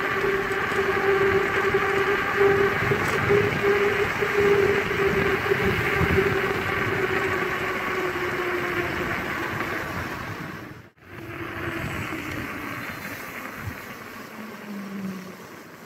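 Gunai MX25 electric enduro bike's motor whining steadily over tyre and wind noise while riding. The whine drops a little in pitch and grows fainter in the second half, with a brief dropout about two-thirds of the way through.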